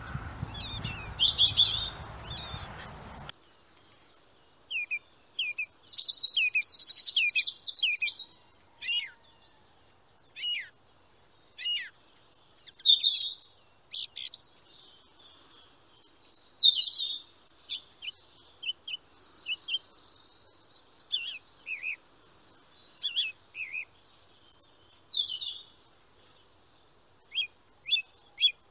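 Small songbirds chirping and trilling in short, high phrases with brief pauses between them. For the first three seconds the chirps sit over a steady outdoor background hiss and rumble, which then cuts off, leaving the birdsong clean.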